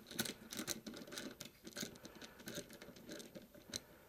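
Screws being removed from a rack rail: a run of small, irregular clicks and scratches.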